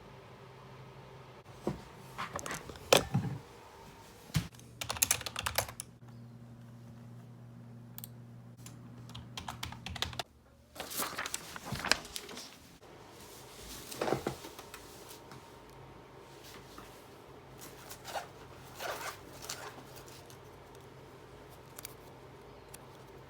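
Computer keyboard typing in several short bursts of clicks, over a steady low hum.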